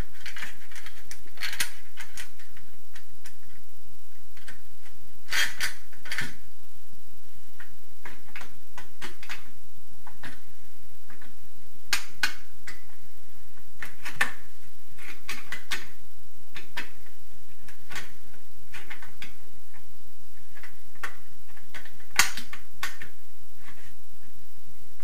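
Hand screwdriver driving a self-tapping screw into a metal shower-cabin profile. Irregular clicks, knocks and scrapes come as the screw turns and the metal parts shift, with a sharper knock every few seconds.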